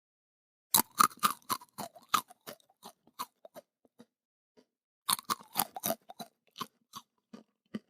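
A person chewing crunchy food close to the microphone: a run of sharp crunches, about three a second, that thin out, then a second run about five seconds in.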